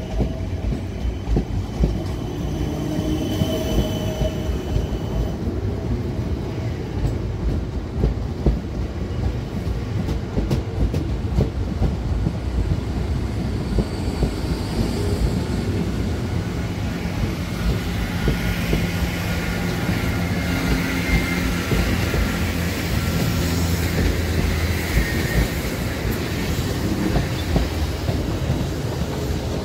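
Three-car-set South Western Railway Class 455/456 electric multiple unit pulling out of the platform and gathering speed: a steady low rumble, its wheels clicking over the rail joints, with some wheel squeal.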